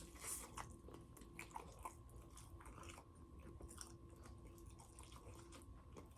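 Faint close-up chewing of fried chicken: soft, irregular wet mouth clicks and smacks, over a faint steady hum.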